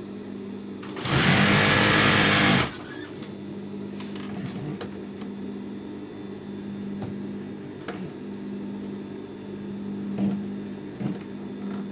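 Industrial sewing machine stitching through silky sheet fabric in one even run of about a second and a half, starting about a second in. After it stops, a steady low motor hum carries on with a few light clicks as the cloth is handled.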